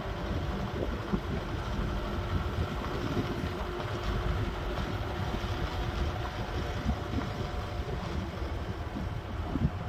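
A ute being driven: steady engine and road rumble with a faint engine tone running through it.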